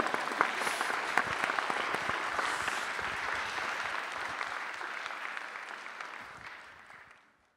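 Audience applauding: dense clapping that is loudest at first, fades gradually, and cuts off shortly before the end.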